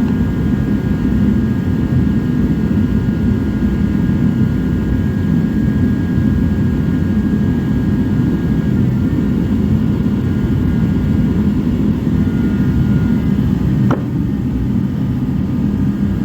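Forced-air 'jet' shop heater running with a steady, loud roar and a faint whine above it. A couple of faint clicks come near the end.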